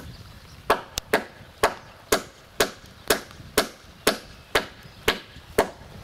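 Hammer driving nails into a wooden board: a steady run of about a dozen sharp strikes, roughly two a second.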